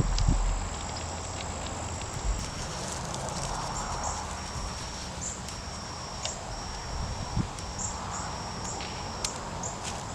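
Insects chirping in a repeating series of short, high trills, over a soft background hiss, with a few light clicks and taps.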